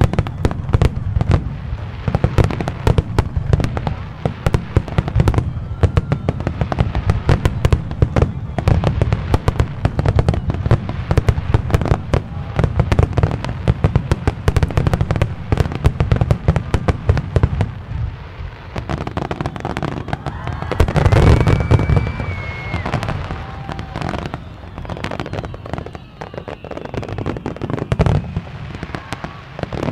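Aerial fireworks going off in a rapid, dense series of sharp bangs and crackles. There is a louder flurry about two-thirds of the way through.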